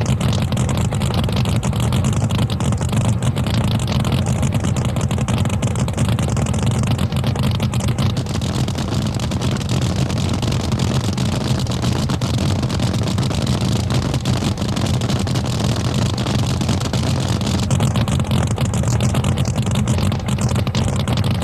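Drag boat engine running steadily at low speed, a loud, even low rumble that neither revs up nor dies away.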